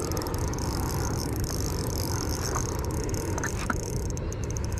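Spinning reel cranked steadily as a hooked bass is reeled in, with a couple of faint clicks about three and a half seconds in.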